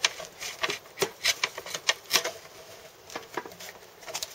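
Irregular light wooden clicks and knocks with some rubbing as the slatted wooden basket of a fruit press is worked up and lifted off the pressed cake of apple pomace.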